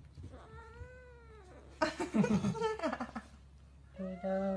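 Domestic cat meowing: one drawn-out meow that rises and falls in pitch, a louder, harsher stretch of calling about two seconds in, and a long, steady call starting near the end.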